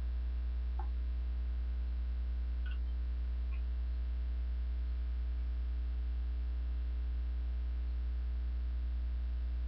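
Steady low electrical mains hum with its overtones, unchanging throughout, with a few faint ticks in the first few seconds.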